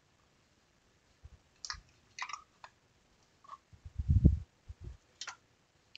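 A few light clicks and taps of small hand tools being handled and set down on a workbench, with a dull low thump about four seconds in, the loudest sound, and a smaller one just after.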